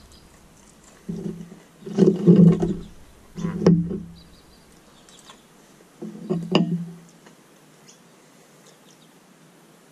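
Four short wordless vocal sounds of enjoyment from a man chewing a mouthful of fish and chips, with a few faint clicks of a fork against the plate; quiet from about seven seconds in.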